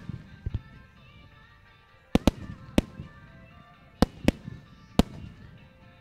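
Firework shells bursting in sharp bangs, a couple of faint ones about half a second in, then about six loud ones from two seconds on, over the music of a pyromusical display.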